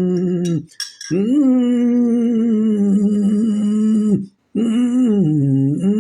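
A man's long hummed vocal tones, a breath-and-voice vibration exercise aimed at the throat to calm a cough. A held tone ends just after the start and is followed by a quick breath in. Then come two long tones of about three seconds each, the second dipping in pitch and rising again.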